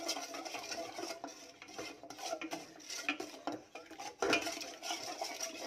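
Wooden spatula stirring a thick coconut cream and rice flour mixture in a stainless steel saucepan, with repeated scrapes and light knocks against the pan. There is one louder knock about four seconds in.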